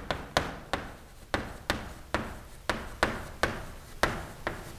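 Chalk writing on a chalkboard: a run of sharp taps, about two or three a second, as the chalk strikes the board with each stroke, each followed by a short scrape.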